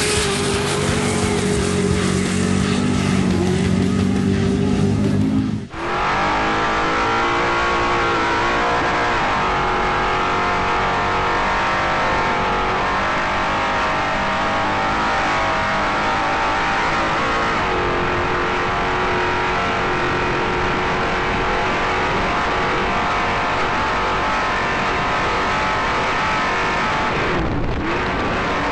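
Off-road race vehicle's engine running hard at racing speed, heard from inside the cockpit, its pitch rising and falling with throttle and gear changes. A brief dropout about six seconds in, where the sound changes.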